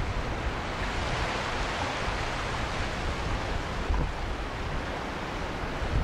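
Ocean waves washing against the rocky shore, a steady rush, with wind rumbling on the microphone.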